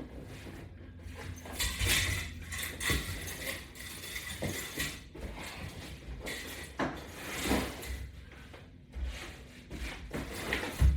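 Exercise straps and their metal fittings rubbing and lightly clinking, with rustling, in irregular bursts every second or two as crunches are done against resistance straps.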